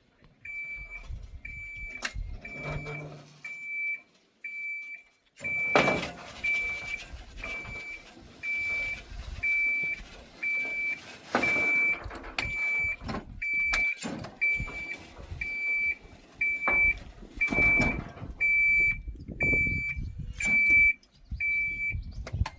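Small electric farm utility cart's warning beeper sounding an even, high single-tone beep about four times every three seconds, with the cart's body rattling and clunking as it moves.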